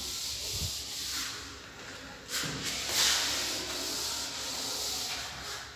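Blackboard duster wiping chalk off a chalkboard: a dry rubbing hiss in several strokes, loudest about two and a half to three seconds in.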